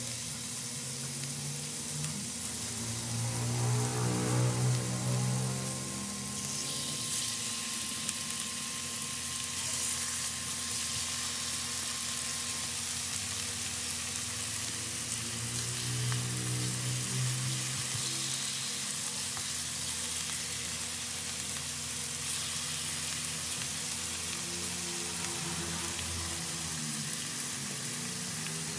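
Chicken strips and beef steaks sizzling in oil on a hot griddle pan, a steady frying hiss that grows stronger a few seconds in.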